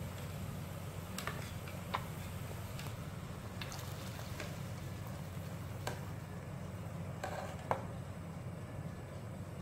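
A metal ladle clinking several times against a steel pot and a bowl as fish paste is scraped in and the boiling soup is stirred, over a steady low hum.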